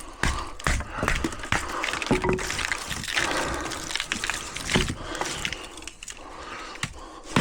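Irregular clinks, knocks and scraping of a salvaged transformer being pried apart by hand for its copper.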